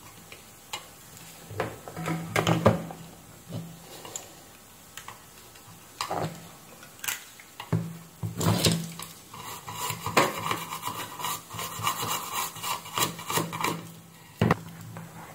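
Tweezers and a soldering iron tapping, clicking and scraping on a circuit board while a small SMD diode is hand-soldered in place, with a dense run of rapid scratchy scraping about ten seconds in.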